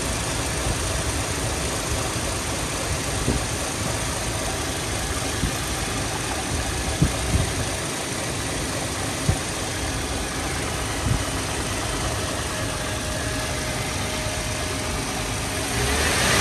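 Toyota Prado's 4.0-litre 1GR-FE V6 petrol engine idling steadily, with a few short clicks over it. It begins to rev up right at the end.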